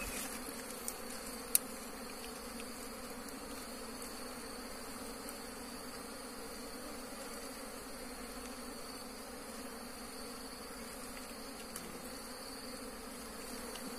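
Steady buzzing of a swarm of wild honeybees, a colony stirred up by the cutting out of its nest, with one sharp click about a second and a half in.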